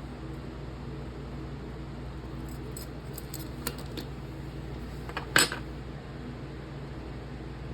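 Small metal parts clinking as they are handled: a run of light clicks, then one sharper, louder clink about five seconds in, over a steady low hum.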